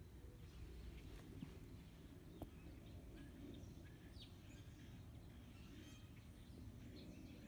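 Faint outdoor ambience: scattered bird chirps over a low steady rumble, with two small clicks about a second and a half and two and a half seconds in.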